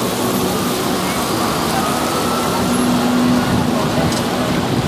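Downtown street traffic: a steady wash of vehicle noise with a low engine hum that swells about three seconds in, over the murmur of passers-by.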